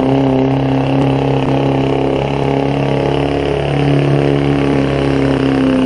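Diesel pickup truck engine running steadily at a raised idle, its pitch drifting only slightly with no hard revving.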